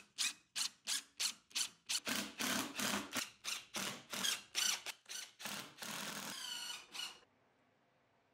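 Cordless impact driver driving screws through a pine cross member into the slats: a quick run of short bursts, about three a second, then a steady motor whine for about a second before it stops suddenly.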